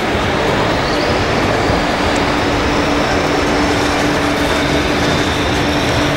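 Radio-controlled model truck running as it drives slowly past: a steady vehicle-like rumble, with a steady hum setting in about two seconds in.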